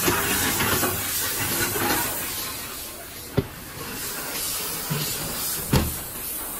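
Bottle unscrambler with its cleated bottle elevator running, lifting plastic bottles out of the hopper, with a steady hiss of machine noise. Two sharp knocks come about three and a half and six seconds in.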